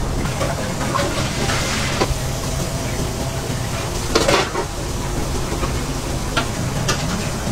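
Steady low kitchen hum under small clicks and scrapes of food being handled on the burger press plate. A louder scrape comes about four seconds in, as a spoonful of sauced filling is scooped from a bowl onto the bun.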